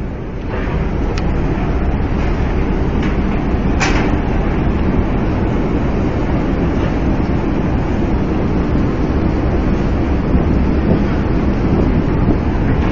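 Loud, steady low rumble of heavy ship machinery, growing louder about half a second in, with a couple of sharp knocks, one about a second in and a louder one about four seconds in.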